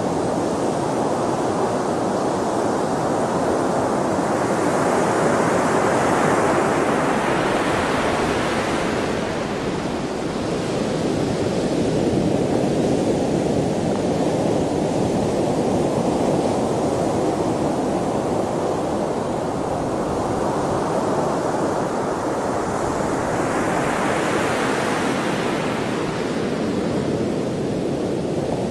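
Sea waves: a continuous rush of surf that swells and turns hissier twice, about a quarter of the way in and again near the end, as waves break.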